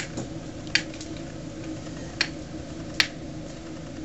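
Bonfire of burning pallets and scrap wood crackling, with a few sharp pops scattered over a steady low background.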